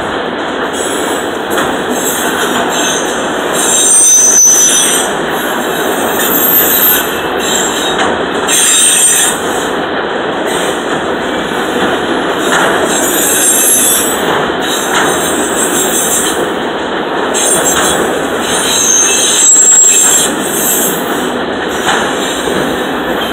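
Empty autorack freight cars of a CSX train rolling past close by: steady rumble and rattle of steel wheels on rail. Several brief high-pitched wheel squeals rise out of it, loudest about four seconds in and again near the end.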